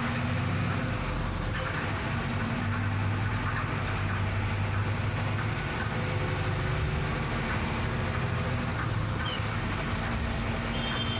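BharatBenz BS6 12-metre bus heard from inside its front cabin while cruising: a steady engine drone with tyre and road noise.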